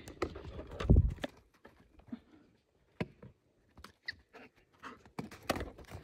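A golden retriever's paws thudding and scuffing on dry dirt and pine needles as it runs after a thrown ball, scattered irregular footfalls with a heavy thump about a second in.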